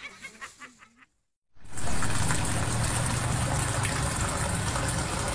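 Steady rush of flowing water with a low hum, typical of a hydroponic rack's circulating pump and the water running through its pipes; it starts suddenly about one and a half seconds in, after a moment of silence.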